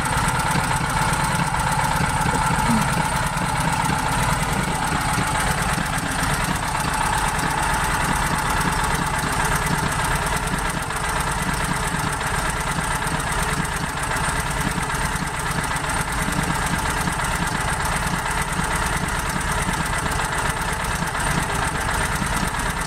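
A propane-fuelled portable generator's small engine running steadily with an electrical load plugged into it.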